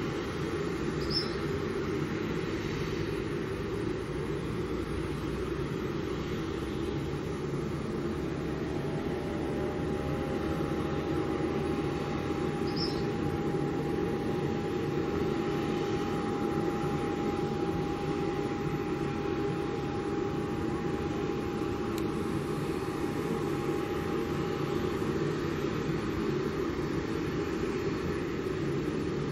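Steady low engine rumble, with a faint steady whine through the middle and two brief high chirps, one about a second in and one about halfway through.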